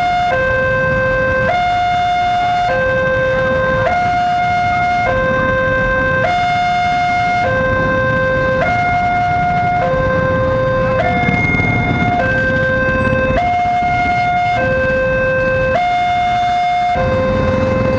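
Railway level-crossing alarm sounding its electronic two-tone warning, a lower and a higher tone alternating about every 1.2 seconds, over the low rumble of a freight train of container wagons passing through the crossing.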